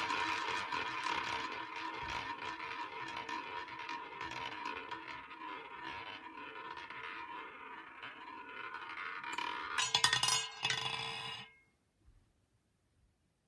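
A roulette ball rolls round the track of a Dal Negro mahogany roulette wheel, a ringing whir that slowly fades as the ball loses speed. About nine seconds in, the ball drops and clatters across the deflectors and pocket frets in a quick run of clicks. It settles in a pocket and the sound cuts off suddenly.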